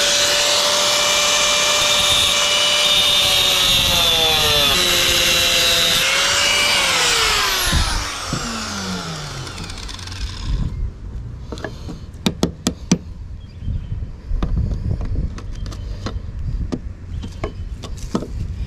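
Angle grinder running at full speed with a loud, high whine that sags as the disc cuts into an anchor-chain link. About seven seconds in it is switched off and the disc spins down with a falling whine over the next few seconds. A few sharp clicks and knocks from handling the chain and tool follow.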